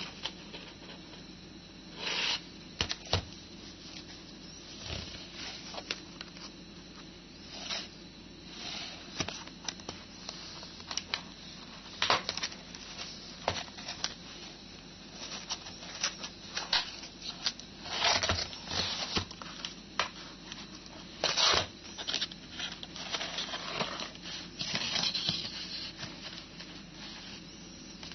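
A cardboard keyboard box being handled and opened: irregular scrapes, rustles and clicks of cardboard and paper packaging, with a steady low hum underneath.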